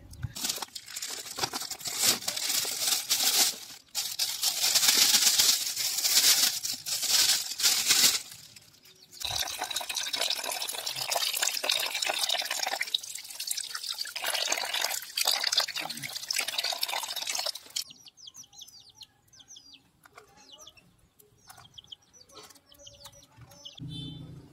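Water splashing and sloshing as a hand stirs and washes a mass of small freshwater prawns in a basin, in two long stretches with a short break between them. After that it goes quieter, with faint bird chirps.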